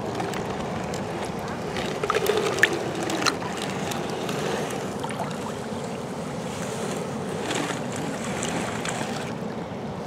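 Shallow water sloshing and lapping around a steel toy bulldozer being pushed through it, with a few knocks and splashes about two to three seconds in.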